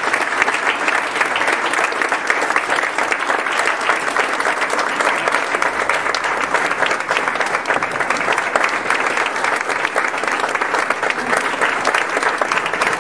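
Audience applauding: a dense, steady round of clapping from many hands that holds at an even level throughout.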